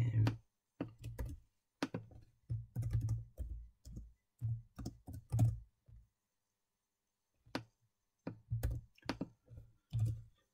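Computer keyboard keys being typed in irregular runs of quick keystrokes, with a pause of about a second and a half in the middle.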